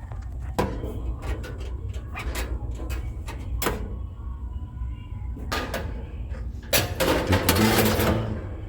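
Scattered clicks and knocks of metal and plastic grill parts being handled during assembly, with a louder stretch of scraping and rattling about seven seconds in, over a steady low hum.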